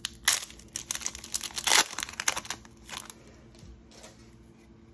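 A foil trading-card pack being torn open and its wrapper crinkled, a quick run of sharp crackles for about three seconds, loudest around the middle, then only faint rustling.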